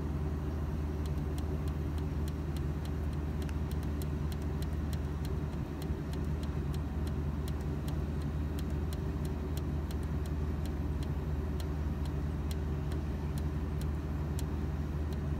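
Daikin VRV III outdoor unit running on its inverter compressor with a steady low hum. Light clicks come about twice a second from about a second in.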